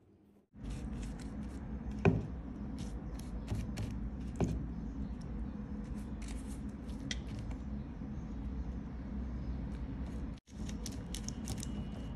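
A silicone pastry brush dabbing and spreading a milk-and-egg sauce over filo rolls in a glass baking dish, making soft scrapes and scattered light clicks. Two louder knocks come about two seconds and four and a half seconds in, all over a steady low hum.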